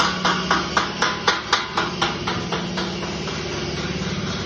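Hammer blows on metal, about four a second, stopping about two seconds in, over a steady machine hum.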